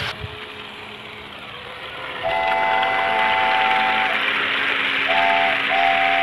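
A train's multi-tone horn sounds over a steady running rumble: one long blast about two seconds in, then a short toot and another long blast near the end.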